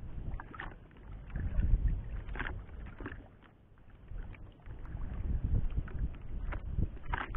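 Wind buffeting the microphone in surging low gusts, with water lapping and slapping against the hull of a small fishing boat on a choppy sea.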